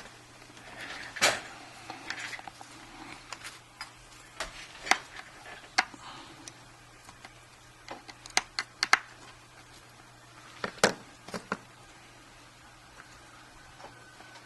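Irregular sharp clicks and light taps of small phone parts and tools handled on a work surface while an iPhone 5 is put back together, the loudest about a second in and again near eleven seconds.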